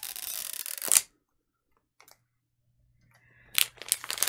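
Plastic wrap of a Mini Brands capsule ball being torn along its perforated strip: a steady tearing that ends in a sharp snap about a second in. After a pause, the plastic film crinkles near the end.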